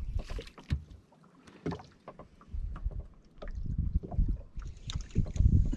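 Water sloshing against the hull of a small boat at sea, in uneven low surges that are loudest near the end, with scattered clicks and knocks from gear on board.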